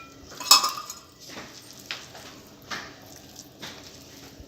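A spoon clinking and scraping against a bowl of thick spice paste as the masala is mixed. There is one sharp clink about half a second in, then softer taps.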